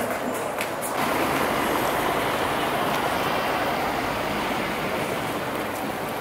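City street noise: a passing vehicle gives a steady rushing noise that comes in about a second in, after a few sharp clicks.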